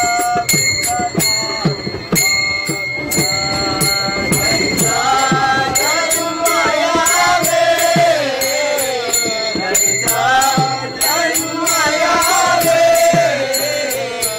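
A group of men singing a Marathi devotional abhang together, kept in time by small brass hand cymbals struck on a steady beat, their metallic ring hanging between strikes.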